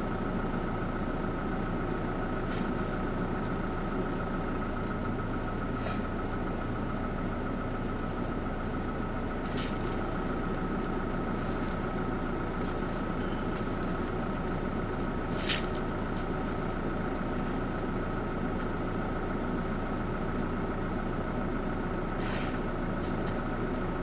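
A vehicle's engine idling steadily: an even low rumble with a thin, steady high tone over it. A few short, sharp sounds break in, the loudest about two-thirds of the way through, and near the end there is a brief splash as a bull elephant throws mud onto its head.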